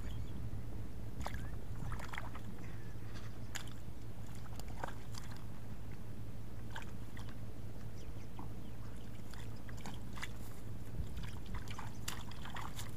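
Hands groping in shallow, muddy rice-paddy water: scattered small splashes and squelches at irregular moments over a steady low rumble.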